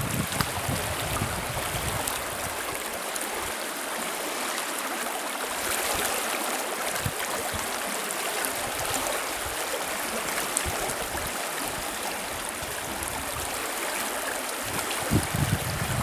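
Small river flowing: a steady rush of running water.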